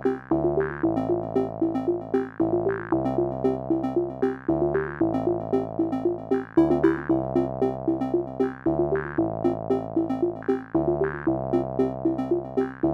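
Background music: electronic synthesizer music with a repeating pattern of short notes over a bass line that changes every second or so.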